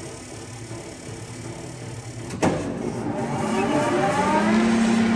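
LeBlond engine lathe: a low steady hum, then a sharp click about two and a half seconds in. After the click the machine's drive spins up with a rising whine that levels off into a steady, louder running hum near the end.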